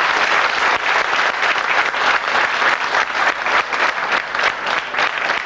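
Crowd applauding: many people clapping steadily.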